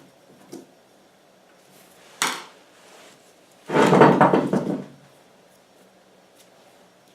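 Handling noise on a workbench: a single sharp knock about two seconds in, then about a second of dense clattering.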